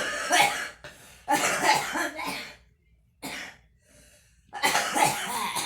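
A young woman coughing hard while smoking: three long coughing fits, with a short cough between the second and third.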